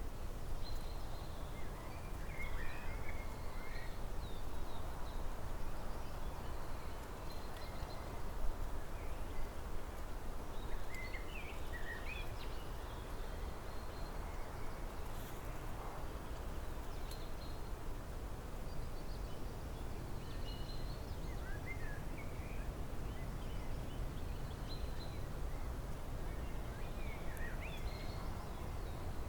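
Songbirds chirping now and then in short, scattered calls, over a steady low background rumble.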